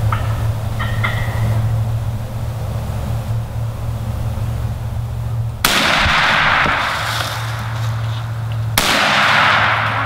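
Two shotgun shots about three seconds apart, each a sharp blast ringing on for about a second through the woods: shots at a wild turkey, the bird taken.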